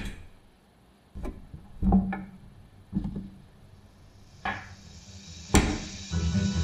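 A handful of sharp wooden knocks at uneven intervals, the loudest about five and a half seconds in; a guitar music track starts just before the end.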